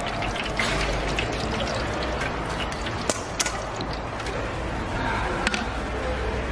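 Metal mesh skimmer scraping and clinking against a deep fryer as the frying oil is skimmed, with a few sharp clinks about halfway through and again near the end, over a steady hiss of hot oil frying.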